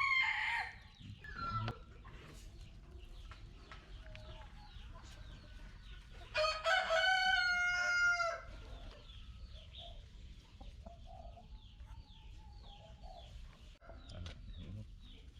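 A rooster crowing once, a long call of about two seconds about halfway in, with chickens clucking around it.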